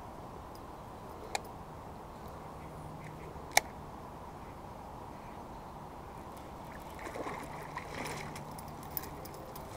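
A fish hooked on a fishing line thrashing and splashing at the water's surface, from about seven to nine seconds in. A short sharp tick, the loudest sound, comes about a third of the way in.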